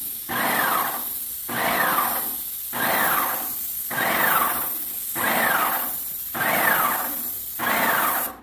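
Graco X5 airless paint sprayer spraying: the pump pulses about once a second, each pulse with a whine that falls in pitch, over a steady high hiss of paint atomizing at the spray tip.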